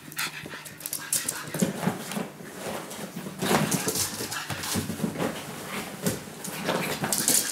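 Pug puppy at rough play: short, low vocal sounds amid scuffling and clicks as it tussles with a soft toy and scampers on a laminate floor.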